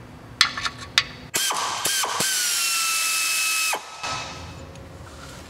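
A few sharp clicks, then a cordless electric ratchet's motor whining steadily for about two and a half seconds as it spins out a 5mm hex-head bolt. The pitch drifts slightly lower and the whine cuts off abruptly.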